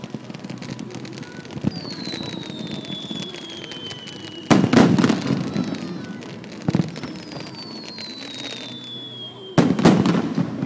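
Two fireworks, about five seconds apart, each whistling with a falling pitch as it climbs, then bursting with a loud bang.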